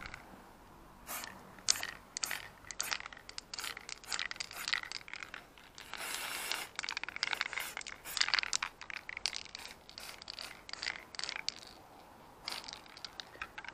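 Aerosol spray can of matte silver paint spraying in many short hissing bursts, with one longer spray about six seconds in, as a motorcycle horn gets its top coat.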